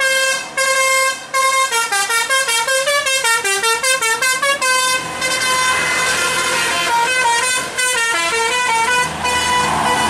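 Tour bus's Basuri multi-tone telolet horn playing a tune: a fast run of short stepping notes, then slower, longer notes. About five seconds in, the bus's engine joins as it passes close by.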